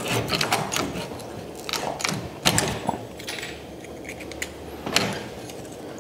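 Bench-mounted hand lever shear cutting a steel knife blank: a quick series of sharp metallic snaps and clicks as the blade nips off pieces of steel, the loudest about two and a half seconds in and again near the end.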